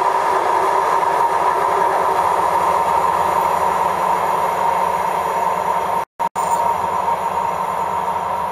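Passenger train coaches rolling away down the track: a steady rumble of wheels on rail with a thin, constant high whine running through it. The sound cuts out twice, very briefly, about six seconds in.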